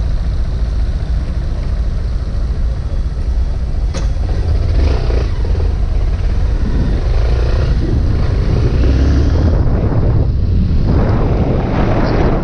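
Honda Bros 160 single-cylinder four-stroke engine running on a road test after a valve adjustment and decarbonising, with a steady low rumble. From about two-thirds of the way in, wind rushing over the microphone grows louder.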